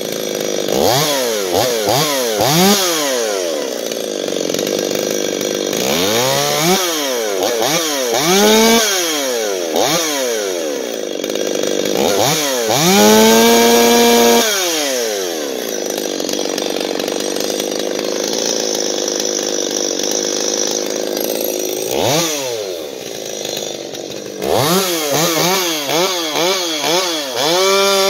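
Freshly rebuilt Stihl MS 250 two-stroke chainsaw with its muffler baffle removed and timing advanced, revved in quick throttle blips again and again, held at full revs for about two seconds near the middle. Between the blips it runs for long steady stretches under load, cutting wood.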